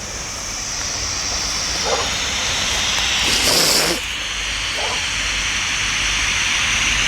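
White noise played from a phone app for recording psychophonies, a steady hiss that slowly grows louder. About three and a half seconds in, a brief louder burst rises above it.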